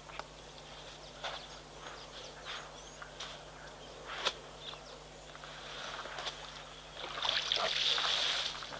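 Elephants moving right beside a waterhole, with scattered faint clicks over a quiet outdoor background. About seven seconds in, a louder hissing, rustling noise starts as a second elephant comes up close.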